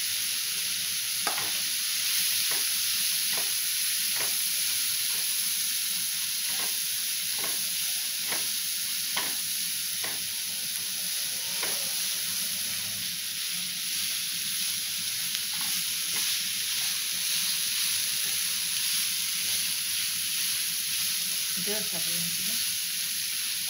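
Diced vegetables (onion, carrot, capsicum and corn) sizzling in butter and oil in a non-stick frying pan, stirred with a silicone spatula. The spatula scrapes the pan about once a second for the first dozen seconds, then only now and then over the steady sizzle.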